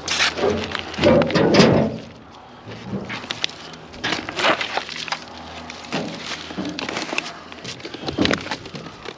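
Plastic nursery pots with plants in them clattering and rustling as they are grabbed and pulled out of a pile of dumpster debris. The knocks and scrapes come irregularly, with the loudest handling about a second in.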